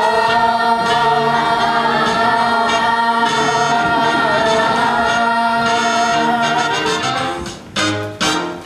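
A chorus of young stage singers holding the final sustained note of a musical number over its accompaniment, then two short closing chords near the end.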